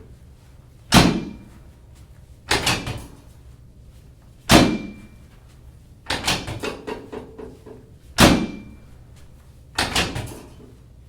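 Chiropractic drop table clacking: six loud knocks, one every one and a half to two seconds. Some are single hard knocks with a short metallic ring, others a quick rattle of several clacks.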